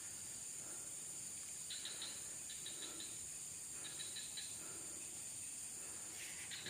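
Steady, high-pitched insect chorus, like crickets, with faint distant voices now and then.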